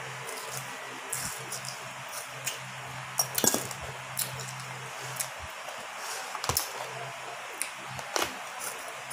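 Scattered crisp clicks and crunches of kamias (bilimbi) fruit being picked from a plastic tub, bitten and chewed, the loudest cluster about three and a half seconds in. A steady low hum runs underneath.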